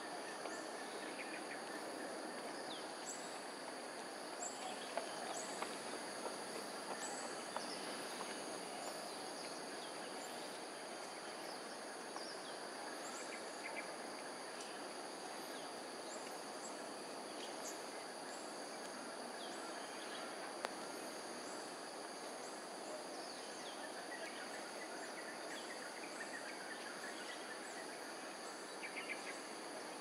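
Outdoor ambience: a steady, high-pitched drone of insects in several layered tones over a constant low background hum, with scattered short high chirps and ticks.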